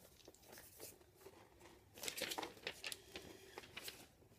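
Sheets of paper being handled, with faint irregular rustling and crinkling that picks up about halfway through.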